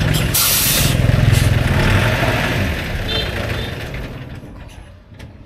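A motor vehicle's engine running loudly, with a short hiss about half a second in and a brief high beep about three seconds in. The engine sound then fades away over the last couple of seconds.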